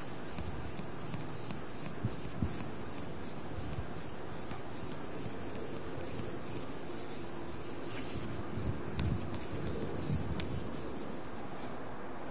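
Chalkboard duster wiping chalk off a green board in quick back-and-forth rubbing strokes, about three a second, stopping shortly before the end.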